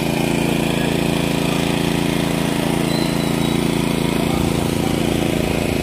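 An engine running steadily at one constant speed, with an unchanging droning hum.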